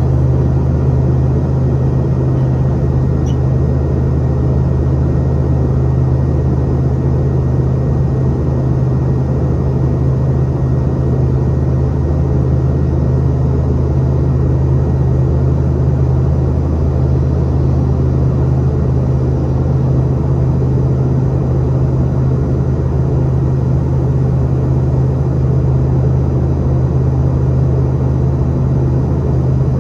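Boeing 717-200 airliner cabin noise near the rear-mounted Rolls-Royce BR715 turbofan engines in flight: a steady, loud low drone with a deep hum under a rushing air noise.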